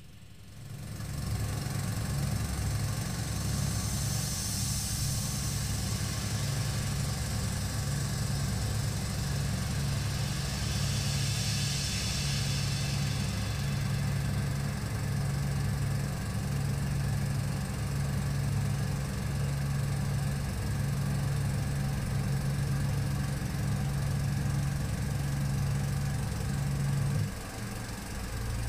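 Tormach PCNC 440 mill's spindle running a Tormach Superfly fly cutter on a very light final surfacing pass across brass bar: a steady low hum with a hiss above it. The sound drops off sharply about a second before the end.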